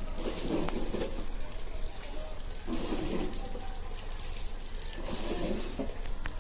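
Floodwater rushing and splashing after heavy rain, a steady wash of water noise.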